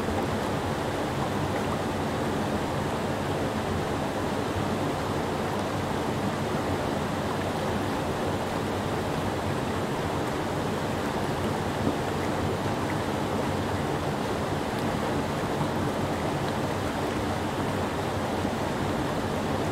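Creek rapids pouring over a low rock ledge: a steady, unbroken rush of whitewater.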